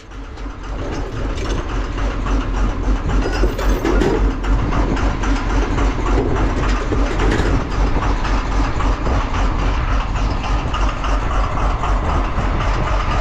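A truck engine running steadily with a rapid, even low pulsing, building up over the first second or so.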